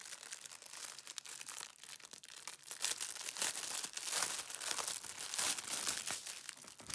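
Cellophane crinkling and rustling as small packets of diamond-painting drills are handled and unwrapped, an irregular crackle that gets louder about three seconds in.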